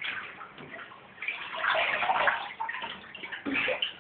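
Bathwater splashing and sloshing in a tub as a toddler moves and plays in it, uneven and loudest from about a second in until two and a half seconds in, with a shorter splash near the end.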